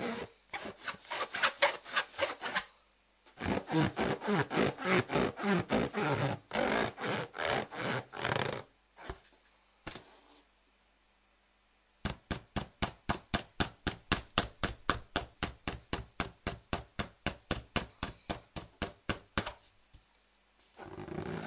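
Rubber balloon being rubbed, a quick run of squeaky strokes about four or five a second, in several bursts with short pauses between them.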